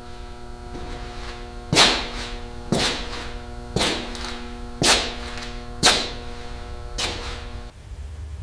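A series of six sharp metallic strikes, about one a second, over a steady ringing tone that stops abruptly near the end.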